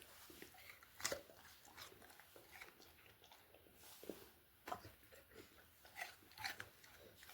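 Golden retriever biting and chewing a whole crunchy apple: faint, irregular crunches, several of them spread across a few seconds.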